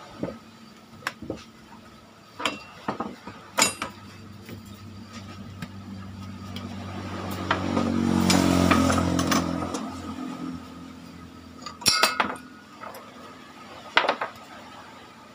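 Scattered clinks and knocks of tools and metal parts being handled on a workbench. About six seconds in, a low hum swells, peaks and fades away over about four seconds.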